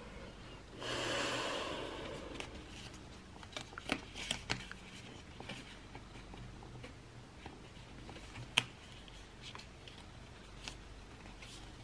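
A paper pull tab being peeled off an Apple Watch box: a brief rustle of paper about a second in, then scattered small crinkles and ticks as fingers work the tab loose.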